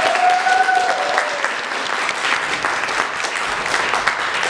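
Theatre audience applauding a cast's curtain-call bow, a dense steady patter of clapping hands, with one long held call from the crowd in the first second.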